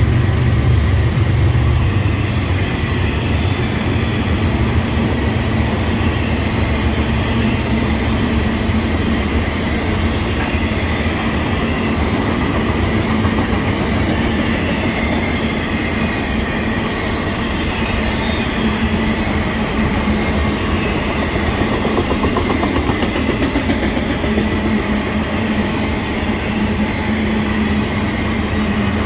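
Double-stack intermodal well cars of a freight train rolling past: a steady, loud rolling noise of steel wheels on rail. A heavier low rumble, the last locomotive moving off, eases off in the first couple of seconds.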